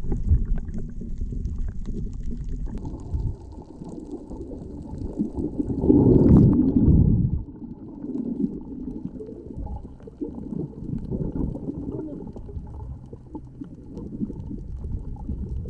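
Muffled underwater water noise picked up by a camera held under the surface: a low churning rumble that swells louder for about a second and a half near the middle, with one sharp click.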